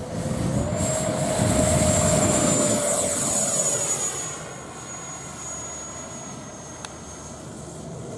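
Radio-controlled model jet's engine running at high power with a high steady whine over a lower tone, both stepping up in pitch about half a second in. It is loud for the first four seconds, then quieter as the whine carries on, with a single sharp click near the end.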